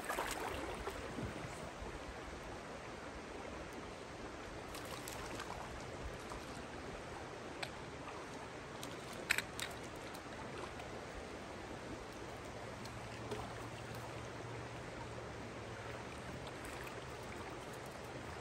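Rocky stream running steadily over stones, with a few brief sharp clicks about halfway through.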